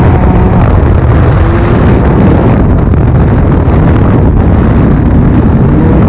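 Turbocharged three-cylinder Rotax 900 ACE Turbo R engine of a Ski-Doo Expedition Xtreme snowmobile, breathing through a Straightline Performance trail muffler. It runs loud and steady at high revs, about 6,000 rpm on the tachometer, as the sled pulls along the trail.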